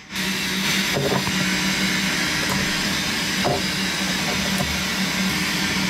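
Steady hiss and low hum of a running CNC machining centre in the shop, with a couple of light metal knocks as the aluminium part is set into the vise's soft jaws.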